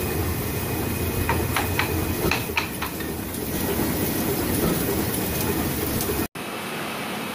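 Heidelberg Speedmaster SM 52-2 two-colour sheetfed offset press running at full speed, a steady mechanical running noise, with a few sharp clicks in the first three seconds. The sound drops out for an instant about six seconds in and comes back slightly quieter, with less bass.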